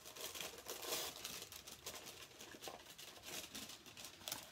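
Wrapping on a beauty subscription box being torn open and crinkled by hand: irregular, fairly quiet rustling and crackling.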